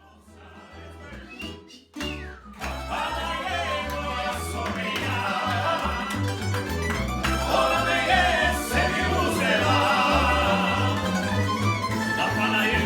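Croatian tamburitza ensemble playing live: plucked tamburica strings over a steady bass line, with voices singing. The music fills out about two seconds in.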